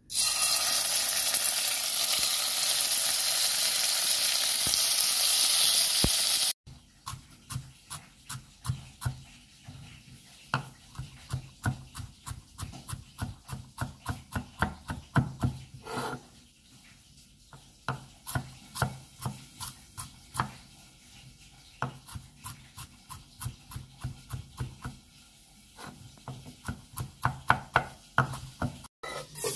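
A loud steady frying hiss from a pot for the first six seconds, cutting off abruptly. Then a kitchen knife chops and minces garlic on a wooden cutting board: runs of quick knocks, a few a second, with short pauses.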